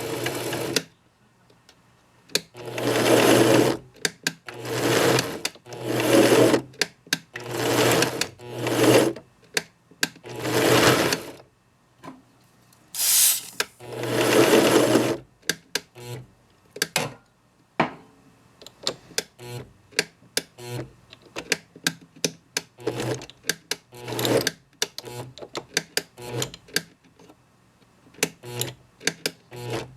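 A small benchtop lathe's motor running in short bursts of about a second, switched on and off again and again. In the second half these give way to a run of irregular sharp clicks.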